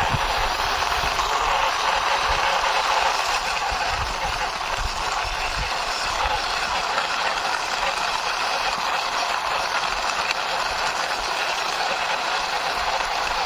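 Toy auto rickshaw's small wheels rolling along a wall under hand pushing: a steady, even rolling rasp.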